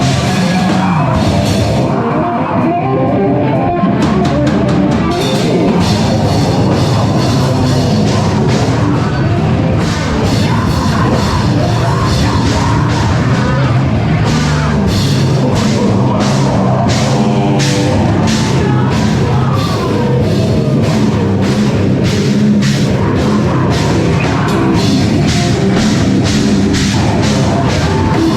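Live heavy rock band playing loud, with distorted guitar and bass over fast, pounding drums and cymbal hits.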